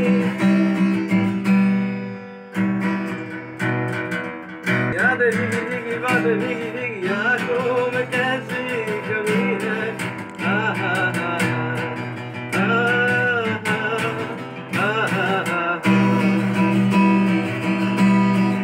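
Acoustic guitar strummed in chords, with a man singing a wavering melody over it; the playing thins out briefly about two seconds in.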